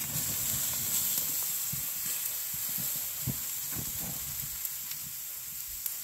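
Ribeye steaks topped with pats of butter sizzling on a grill grate over a live wood fire: a steady hiss as the butter melts onto the hot meat, with a few faint pops.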